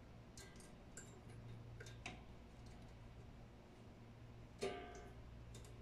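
A few scattered small plastic clicks and taps from cable plugs and a V8 sound card being handled, the sharpest about four and a half seconds in, over a faint low hum.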